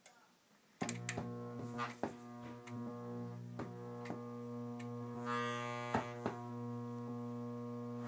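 Loud steady mains hum with buzzy overtones, starting suddenly about a second in as the EU 6201 unit is switched on, with a few sharp clicks and a brief hiss over it. The hum is the fault the unit produces.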